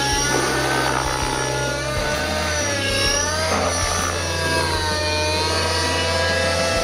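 O.S. MAX-55HZ two-stroke glow engine of a JR Vibe 50 RC helicopter running at high revs, its pitch gliding down and back up as the helicopter manoeuvres in 3D flight. A low steady drone that shifts in steps runs underneath.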